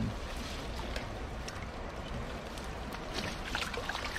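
Steady rush of shallow river water. Faint rustles and drips near the end as a wet nylon cast net is lifted and handled.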